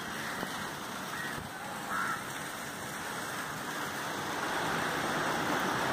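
Steady rushing outdoor noise, with a short honk about two seconds in.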